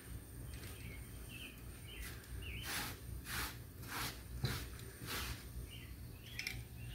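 Small birds chirping in the background over a low steady hum. Near the middle come five short rubbing strokes, about two a second.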